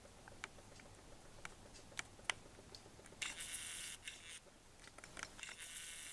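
Handheld camera's own mechanical noise: a few light handling clicks, then the lens zoom motor whirring, once about three seconds in and again near the end.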